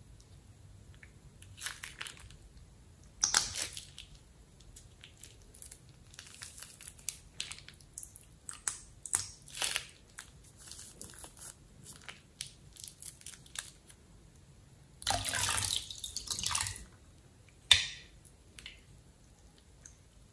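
Slime squeezed from a plastic piping bag and worked in a glass bowl: scattered short wet squishes and plastic crinkles. The longest and loudest stretch comes about three-quarters of the way through.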